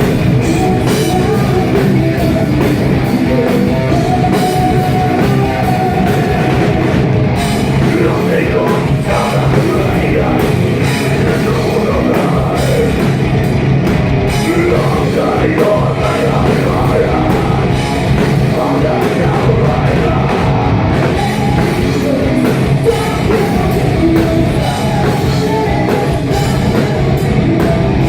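Live heavy metal band playing, with drums, guitars and singing, recorded on a phone that can't handle the volume, so the sound is harsh and overloaded.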